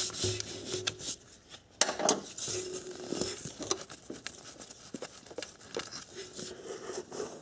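Irregular clicks of a ratcheting wrench on the camshaft position sensor's retaining bolt, then scraping and rustling as gloved hands work the sensor loose from the engine.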